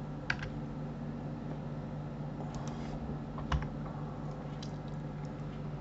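A few scattered clicks of a computer keyboard and mouse, over a steady low hum.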